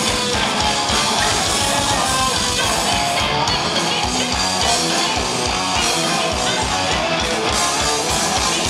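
Live noise-rock band playing loud and fast: distorted electric guitar over rapid, even drum beats.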